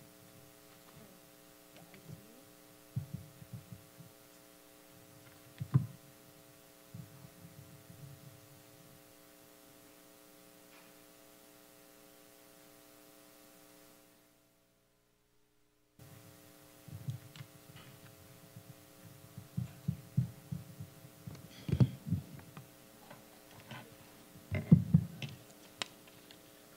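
Steady electrical hum with scattered low thumps and knocks, busiest and loudest in the last third. The sound drops out to silence for about two seconds just past the middle.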